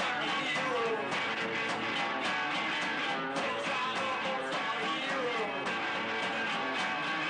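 Rock music with guitar strumming over a steady beat.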